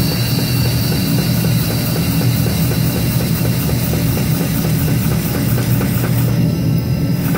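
A vintage pit jack's drive running steadily, with a low hum and a fast regular ticking, as it raises a locomotive pilot-truck wheelset into place.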